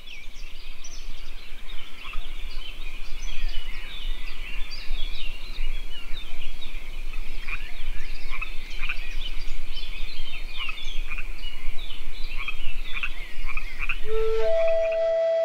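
A dense chorus of frogs, many short calls overlapping continuously. About a second before the end, a flute comes in on a long held note.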